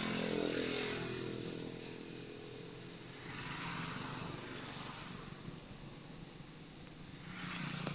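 A motor vehicle engine passing in the background, its note falling just after the start. A low engine hum carries on, and traffic noise swells again around four seconds in and near the end.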